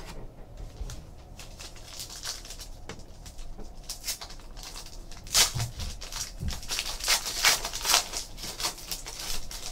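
Foil wrapper of a Panini Select basketball card pack crinkling and tearing as it is ripped open by hand, a run of crisp rustles that grows louder and busier about five seconds in.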